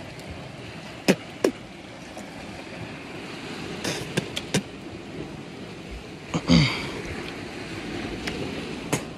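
A man's short groan of disgust, falling in pitch, about six and a half seconds in, reacting to a raw rock oyster that tastes bad to him. A few sharp clicks and a steady rush of wind on the microphone run underneath.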